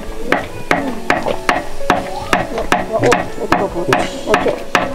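Rapid, regular chopping or hammering blows, about three to four sharp strikes a second.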